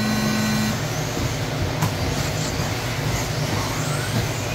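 A race start tone sounds for about the first second, then a pack of 1/10-scale electric 4WD RC buggies with 13.5-turn brushless motors pulls away from the grid, their motors whining and rising in pitch over a steady low hum.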